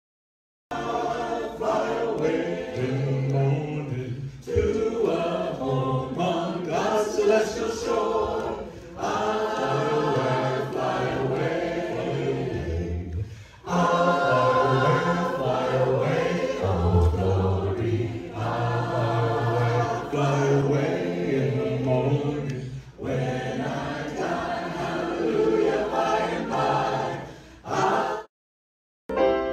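A small mixed group of men and women singing together, in phrases with brief pauses between them. The sound drops out briefly just after the start and again about a second before the end.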